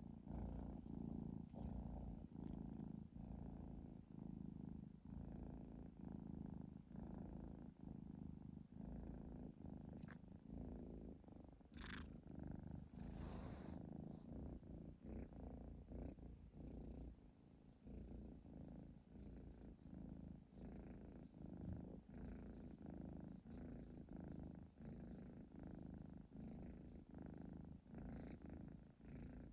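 Tabby kitten purring close up, a low rumble pulsing about twice a second with its breathing.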